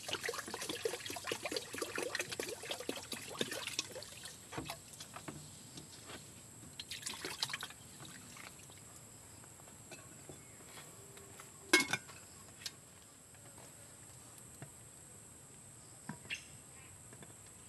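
Water being poured into a metal cooking pot and rice being swished and stirred by hand in it, with splashing and trickling. It is busiest in the first few seconds, and there is one sharp knock, the loudest sound, about twelve seconds in.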